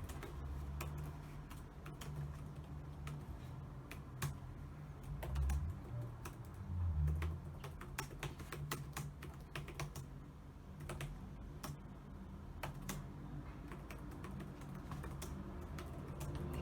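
Typing on a computer keyboard: irregular, uneven keystroke clicks, with a couple of low thumps about five and seven seconds in.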